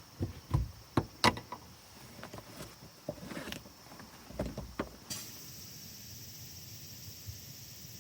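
A series of irregular knocks and clatters, like gear or a vehicle door being handled, the loudest around a second in; about five seconds in they stop and a steady high-pitched chorus of insects, such as crickets, takes over.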